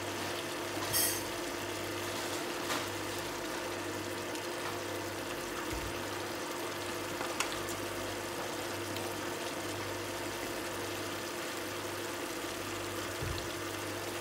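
Beef and bell peppers simmering in a frying pan, a steady sizzle over a low steady hum, with a few faint clicks.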